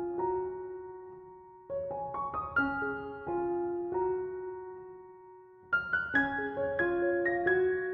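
Background piano music: gentle piano phrases, one note left ringing to fade out before a fuller phrase comes in near the end.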